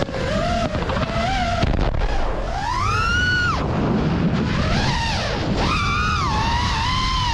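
Background music with a slow, wavering, gliding melody line like a theremin, over a steady low rumble.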